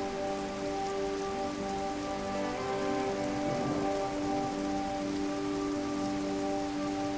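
Waterfall rushing in a steady, even wash of water noise, with soft held musical tones running underneath.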